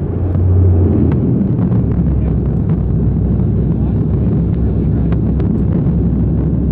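Turboprop airliner's engines and propellers running loud during the landing roll, heard from inside the cabin. The low drone swells and drops in pitch about a second in.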